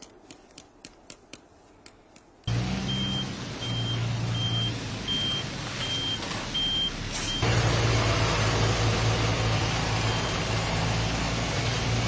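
A heavy vehicle's engine running, with a reversing alarm beeping about once every three-quarters of a second; both start suddenly a couple of seconds in, after faint scattered ticks. About halfway through the beeping stops, and the engine and a rushing noise get louder.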